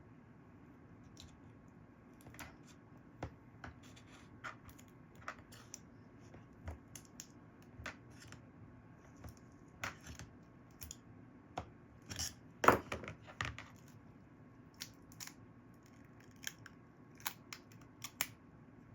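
Small clicks and scrapes of a pry tool working under a glued-in iPhone 11 Pro battery, its adhesive softened with alcohol, with a louder burst of scraping and tearing about two-thirds of the way through as the battery works loose.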